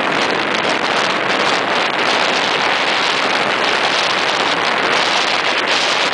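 Steady, loud rushing of strong wind on the microphone over rough, breaking sea surf.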